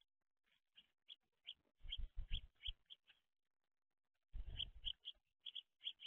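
House sparrows chirping at a seed feeder: quick runs of short, repeated chirps in two stretches, about two seconds in and again near the end, with low thumps and rustling under them.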